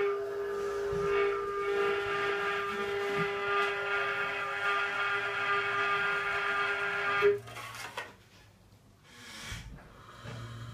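Experimental improvised music: a steady, held drone of several pitched tones stacked above one strong low tone, cut off suddenly about seven seconds in. Faint scattered sounds and a short hissing swell follow.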